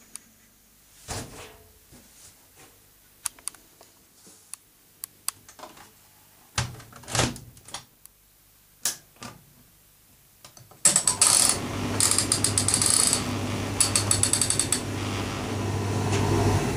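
A few clicks and short knocks as the tumble dryer's controls are set. About eleven seconds in the dryer starts: a steady motor hum under the noise of the turning drum, with fast clicking over it for the first few seconds.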